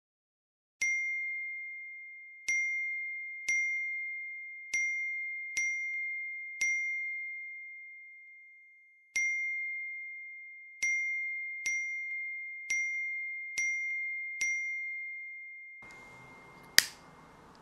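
Messaging-app notification dings, about a dozen of them, each a single bright tone that rings and fades, arriving at irregular intervals and sometimes less than a second apart, as chat messages come in. Near the end, faint room hiss comes in and there is a single sharp click.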